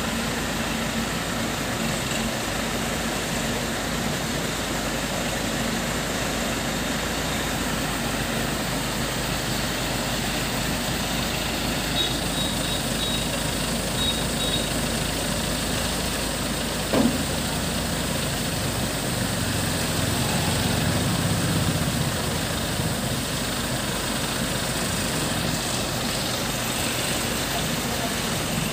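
ACE Rhino 110C pick-and-carry crane's diesel engine running steadily while it lowers a heavy machine on its hook. A single sharp knock comes a little past the middle, and the engine sound swells briefly a few seconds later.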